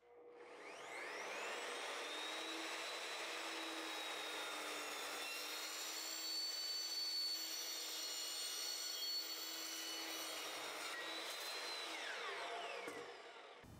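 Evolution EVOMAX metal-cutting chop saw with a 14-inch, 80-tooth ceramic carbide blade. The motor spins up with a rising whine and cuts through square steel tubing. After the cut the whine falls as the electronic brake stops the blade in a couple of seconds.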